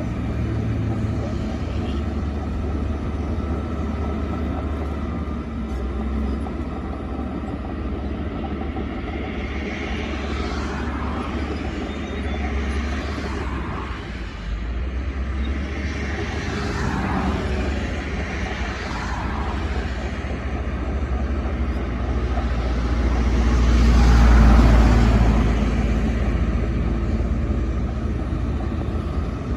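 Shantui DH17C2 bulldozer's diesel engine running with a steady low rumble, rising and falling in pitch several times as it revs. It is loudest about three-quarters of the way through.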